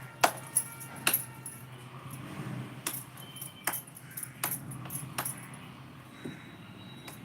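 Utensils clinking against dishes: about seven sharp clinks spread over several seconds, the first two with a short metallic ring, over a low steady hum.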